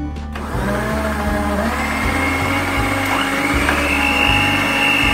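Electric stand mixer switching on about half a second in and beating pancake batter in a steel bowl. Its motor whine rises as it speeds up, then holds steady.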